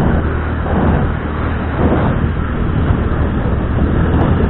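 Motorbike being ridden along a street: a steady low engine hum under a rush of wind on the microphone.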